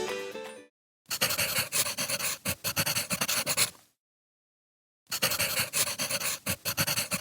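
A dog panting rapidly, heard in two stretches of a few seconds each with a dead-silent gap between them.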